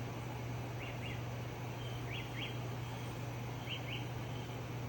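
A small bird chirping, each call a quick pair of short high notes, three times about a second and a half apart, over a steady low hum and background hiss.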